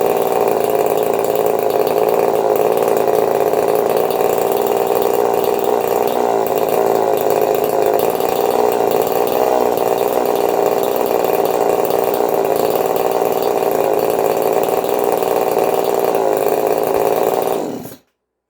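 Two-stroke chainsaw engine with an experimental crankshaft and piston swap, running steadily on a bench run; it cuts off abruptly near the end.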